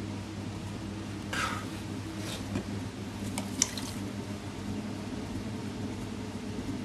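Wet sounds of a potter's hands dipping into a water bucket beside the wheel and working wet clay: a few short splashes and squelches, with one sharp click about three and a half seconds in, over a steady low hum.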